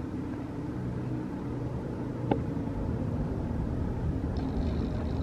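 Steady low outdoor rumble, with one sharp click about two seconds in.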